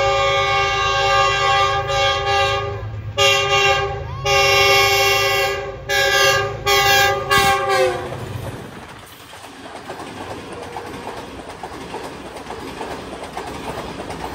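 Pakistan Railways Green Line express passing through at speed. The diesel locomotive's multi-tone horn sounds one long blast and then a string of shorter blasts, its pitch dropping on the last as the locomotive goes by. The coaches then rush past with rattling wheel clatter.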